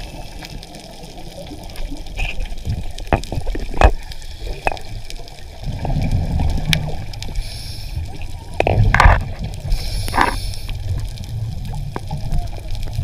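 Underwater sound on a diver's camera: low gurgling rumbles of exhaled bubbles in bursts, with scattered sharp clicks.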